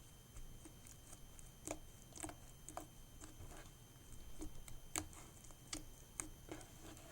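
Slime being pressed and poked by hand, giving off irregular small pops and clicks; the loudest pops come about two and five seconds in.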